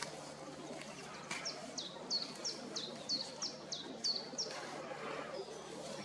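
A small songbird singing a run of about ten short, high notes, each sliding downward, at roughly three a second, over steady outdoor background noise.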